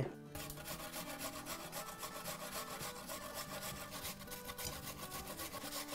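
A peeled apple being grated on a stainless-steel hand grater, with fast, even rasping strokes.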